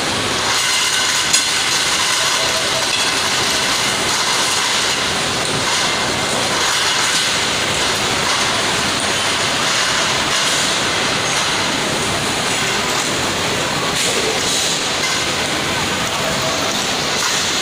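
Automated T8 LED tube silicone-dispensing line running: a steady, loud machinery noise of conveyor and pneumatic heads, with a single sharp knock about a second in.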